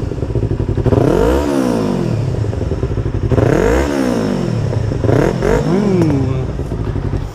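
Yamaha R25 sport bike's parallel-twin engine revved while standing, through its Tiger exhaust. Two long rises and falls of the revs are followed by two shorter throttle blips.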